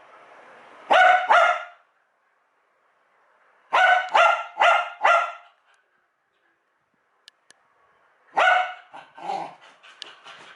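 Wire fox terrier barking in short sharp volleys: two barks about a second in, four more about four seconds in, and another run of barks near the end, set off by a computer's USB plug/unplug sound.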